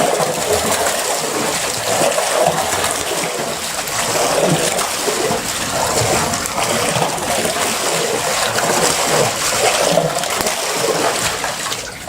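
Water being pumped in against a closed, flood-sealed garage door, splashing and pouring steadily.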